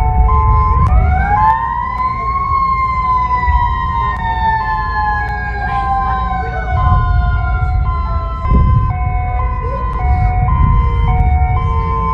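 Emergency alert alarm made of two sirens. A two-tone hi-lo siren alternates between two pitches roughly every three-quarters of a second. Over it a wailing siren rises sharply about a second in, then slides slowly down for several seconds and cuts off about eight seconds in, starting to rise again near the end; a low rumble runs underneath.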